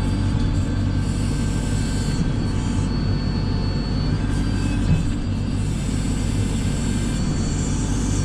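JCB 3CX backhoe loader's diesel engine running steadily under work, a constant low drone.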